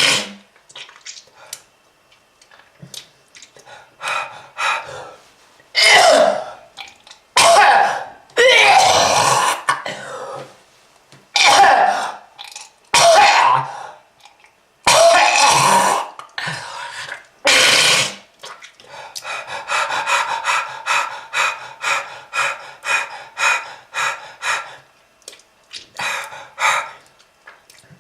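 A person coughing hard in repeated separate fits, with harsh throat-clearing hacks. From about two-thirds of the way through come quick, rhythmic short gasping breaths.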